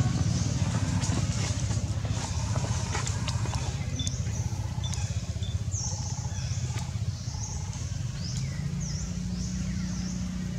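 A steady low mechanical hum, like an engine running at a distance. From about four seconds in, short high falling chirps repeat several times a second above it.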